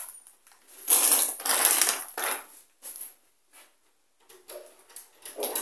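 Plastic grocery packaging crinkling in three short bursts as groceries are moved around on a kitchen bench, then a couple of light knocks of items being set down and softer handling near the end.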